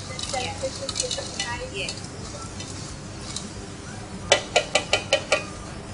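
A metal spoon stirring in a steel cooking pot on the stove. Near the end come about seven quick, sharp clinks of metal on metal, the spoon knocking against the pot.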